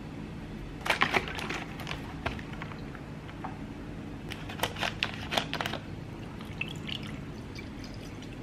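Kitchen handling sounds over a steady low hum: sharp clicks and knocks about a second in as yogurt is spooned into a plastic blender cup, a second cluster of clicks from about four seconds in as the carton is handled and its plastic cap opened, then milk starting to pour into the cup near the end.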